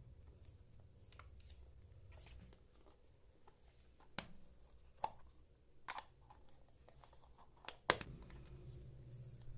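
Hands handling small plastic toy pieces and packaging: faint rustling, with a handful of sharp clicks and taps spaced about a second apart. The loudest is a quick double click near the end.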